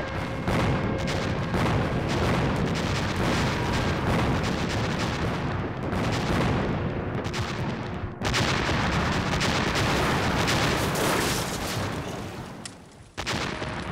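Battle sound effects of dense rifle and machine-gun fire mixed with explosions, running on without a pause. It breaks off sharply a little past the middle, starts again at once, and fades away near the end before a last short burst.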